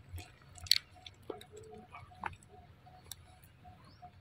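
Macaque chewing food: wet, scattered clicks and squishes of its mouth. Behind it a faint short note repeats evenly, about three times a second.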